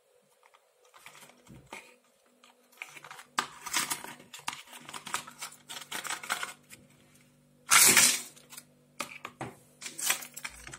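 A small cardboard pill box being opened and handled: irregular clicks and rustling of the card flaps and the folded paper leaflet, with one louder, longer rustle about eight seconds in.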